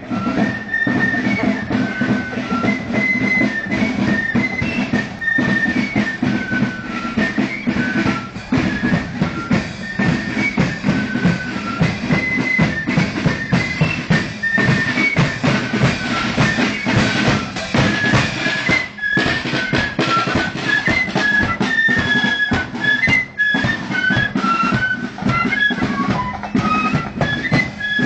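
Marching flute band playing a tune: massed flutes carry a high melody in unison over steady side-drum and bass-drum beats.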